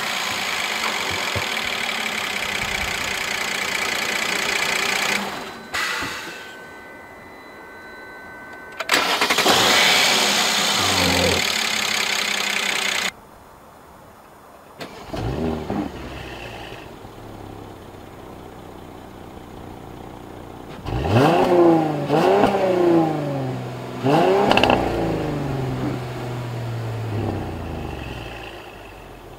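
Mercedes-Benz E300 4Matic V6 engine running and being revved. The first part is a loud steady rush that stops abruptly. Then comes a quieter idle broken by several short throttle blips whose pitch rises and falls, most of them clustered in the second half.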